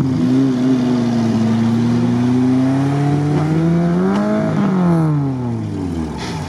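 Stuck Chevrolet Niva pulling itself backward out of a ditch on its rear winch, engine and winch straining under load: a steady mechanical hum that climbs briefly about four seconds in, then sinks away near the end.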